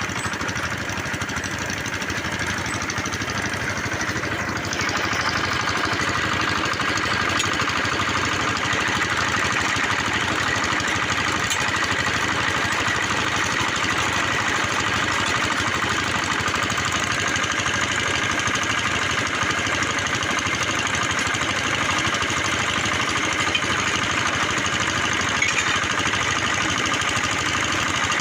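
Engine of a bore-well drilling machine running steadily. It gets a little louder about five seconds in, and a faint steady whine sits over it after that.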